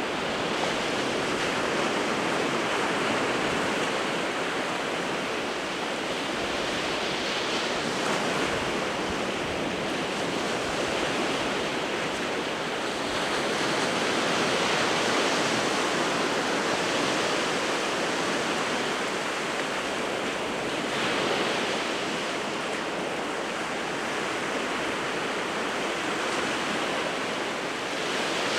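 Winter Sea of Japan surf: a steady wash of waves breaking on the shore, swelling louder every several seconds as larger waves come in.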